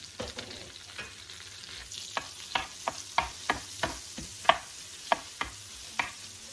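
Melted butter and ghee sizzling in a non-stick frying pan as whole cloves, cardamom and cinnamon fry in it, with a black spatula stirring and knocking against the pan about three times a second from about two seconds in.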